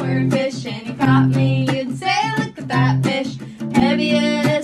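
A song: acoustic guitar played under a voice singing the words.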